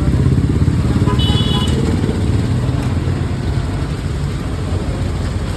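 Busy street noise: a steady low rumble of passing road traffic and motorcycles, with a brief high-pitched tone about a second in.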